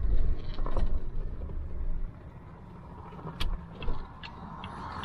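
Recovery truck's engine running with a low rumble that drops away about two seconds in, followed by a few light clicks.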